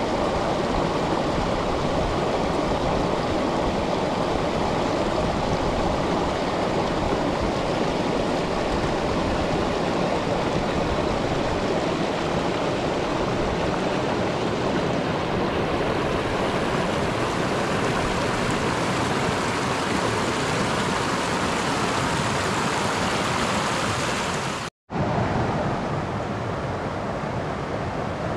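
River water rushing steadily over a low rock ledge in a small cascade. It cuts out for an instant near the end and resumes slightly quieter.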